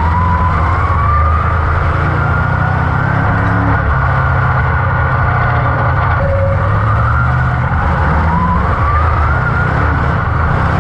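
Dirt-track crate modified's GM 602 crate V8 running hard at racing speed, heard from inside the cockpit. A whine climbs in pitch twice as the engine winds up, in the first seconds and again near the end.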